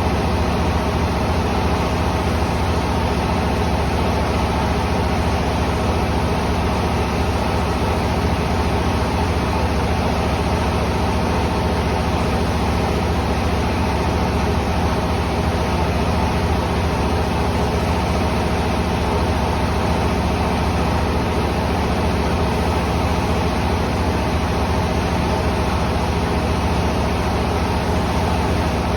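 Rice mill machinery running with a loud, steady drone and a constant hum that does not change.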